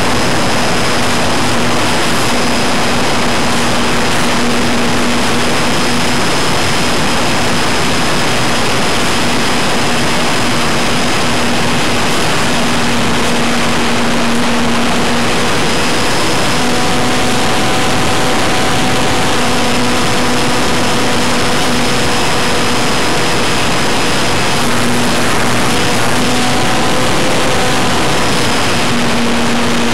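Electric motor and propeller of a ParkZone F4U Corsair RC plane in flight, heard from a camera mounted right behind the prop: a loud, steady buzz with a low hum and a thin high whine over a dense rush of air. The hum wavers and shifts a few times with the throttle.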